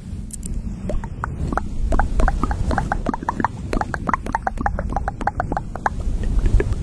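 Fluffy makeup brush swept back and forth over a microphone's grille at close range. It makes a run of quick, scratchy strokes, several a second, over a low rumble.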